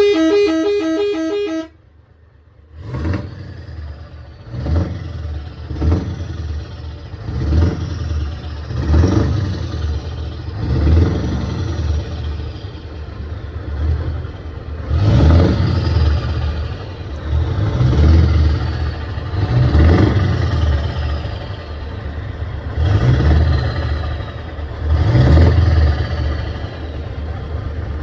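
Truck horn sounding a pitched chord for under two seconds and cutting off. After a second of quiet, the truck's diesel engine is revved again and again, about a dozen rises and falls, each with a high whistle that rises and falls with the rev.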